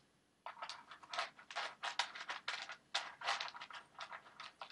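Pretend eating noises for a raccoon hand puppet eating from a bowl: quick, irregular, quiet smacking and munching sounds, several a second, starting about half a second in.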